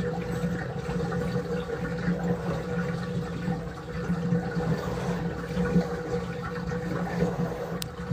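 Water running steadily into a utility tub full of soapy water, with a steady low hum underneath.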